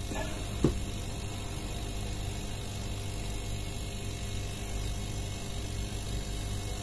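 Small hermetic refrigeration compressor and condensing fan running together with a steady hum. There is one light knock about half a second in.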